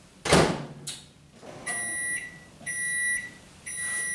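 A short clatter, then a microwave oven beeping to signal its heating cycle has ended: a high electronic beep about once a second, each about half a second long, three times.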